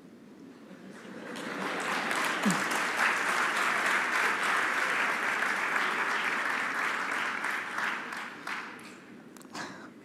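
Audience applauding in a large hall. The clapping swells over about the first two seconds, holds steady, then dies away near the end.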